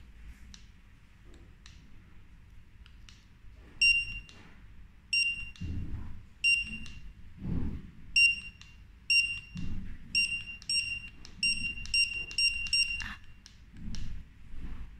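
Mini handheld 1D barcode scanner giving short high-pitched beeps, each the sign of a successful barcode read, about a dozen in all: spaced out at first, then in quick succession from about ten seconds in.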